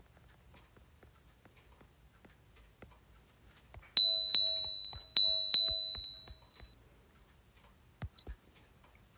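Watch key tone: two pairs of quick high-pitched beeps, each pair ringing and fading away, the second pair just over a second after the first. Near the end come a couple of sharp clicks with a brief high chirp.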